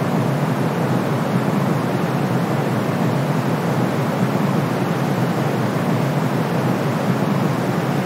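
Brown noise blended with white noise: a steady, unchanging rush, deepest and strongest low down, with a thinner hiss above.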